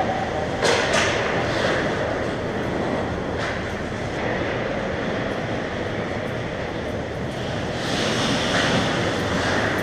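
Ice hockey skates scraping and carving on the rink ice, a steady hiss with a few sharp clacks. The scraping grows louder near the end as players crowd the net.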